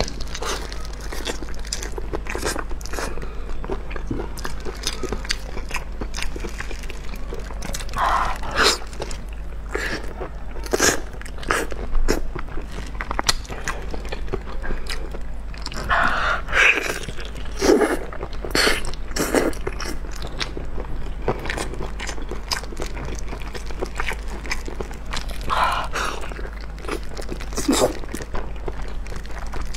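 Close-miked biting and chewing of braised pig ear and trotter skin, with many short crisp clicks of teeth and mouth and a few louder chewing bouts.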